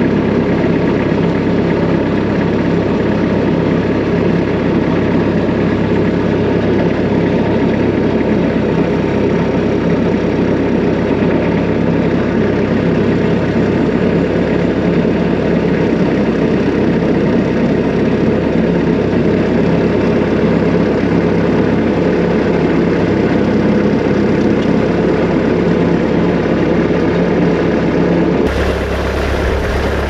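Diesel engine of a Bobcat 773 skid-steer loader running steadily, heard from inside the cab, now that its fuel pickup problem has been fixed. Near the end the sound switches abruptly to a deeper rumble of the loader running, heard from outside.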